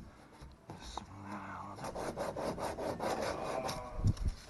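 80-grit sandpaper rubbed by hand in quick back-and-forth strokes over a lumpy polyethylene plastic-weld patch on a kayak hull, smoothing it down. A single low thump about four seconds in is the loudest sound.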